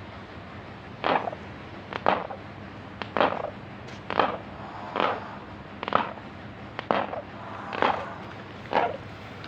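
An animal grinding its teeth in short grating strokes, about one a second, nine in all. Teeth grinding of this kind is a sign of abdominal pain.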